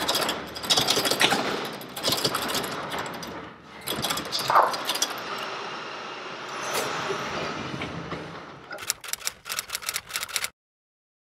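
Metal-framed glass entrance door rattling and clacking as it is pushed and pulled at its push bar, with a quick run of clacks shortly before the sound cuts off suddenly.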